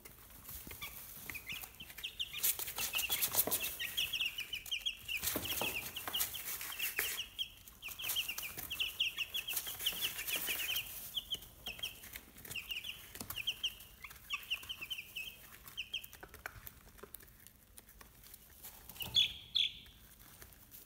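A brood of 11-day-old chicks peeping continuously, many short falling peeps overlapping, while they scratch and peck through wood shavings. The rustling of the shavings is loudest in the first third, and a louder burst of peeps comes near the end.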